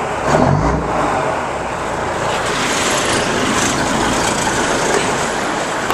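Mack Thermodyne diesel engine of a 1959 Mack B61T idling steadily, warming up after a cold start.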